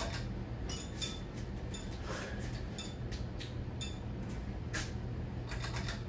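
Hunter Stratford 52-inch ceiling fan running, its motor giving a steady low hum, with irregular light clicks and clinks scattered over it.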